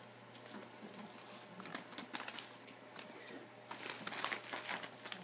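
Torn gift-wrapping paper crinkling faintly as small dogs move through it, the crackles getting busier near the end.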